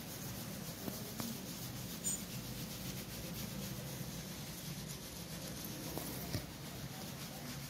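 Faint rubbing and handling noise with a few light clicks over a steady low hum.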